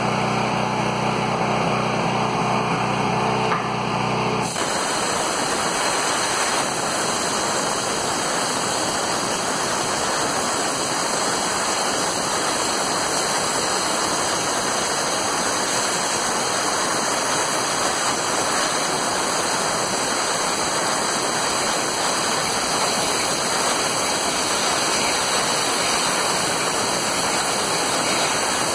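PrimeWeld plasma cutter at 45 amps cutting through a steel I-beam: a steady hum for about the first four seconds, then the arc catches and a loud, even hiss runs on as the torch cuts.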